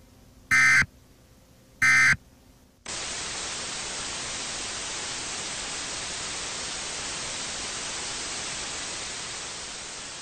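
Two short, loud electronic alert beeps about a second and a half apart, like an emergency-broadcast warning tone. Just under three seconds in, television static hiss cuts in suddenly and runs steadily, fading slightly near the end.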